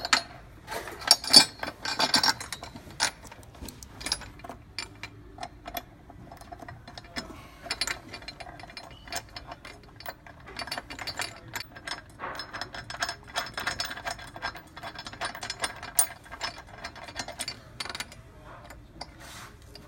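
Ratchet wrench clicking in short runs as nuts and washers are run onto bracket bolts, with scattered clinks of metal fittings.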